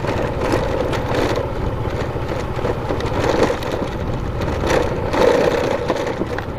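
Motorcycle engine running steadily while riding along a rough, unfinished road, with road noise and scattered short knocks from bumps.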